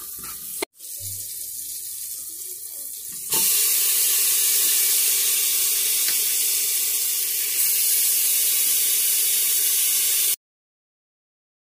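Kitchen tap running steadily into a sink, a fainter hiss at first, then much louder from about three seconds in, until it cuts off abruptly near the end.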